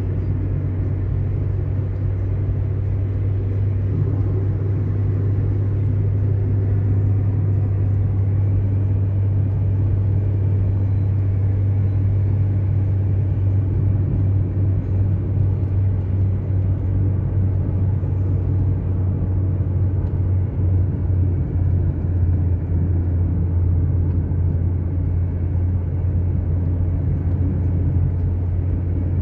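A car driving at a steady pace on paved road: a steady low rumble of engine and tyres.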